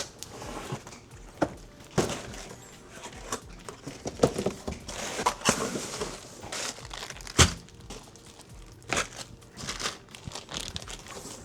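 Packaging crinkling and tearing as it is handled, with a few sharp knocks mixed in, the loudest about seven seconds in.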